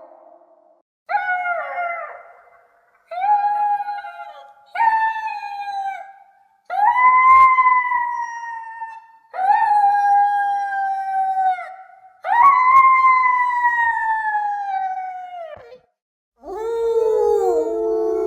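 Wolf pups howling: about seven separate high, pitched howls with short gaps between them, each sliding down in pitch as it ends. The later howls are longer, and the last one is lower, with two voices overlapping.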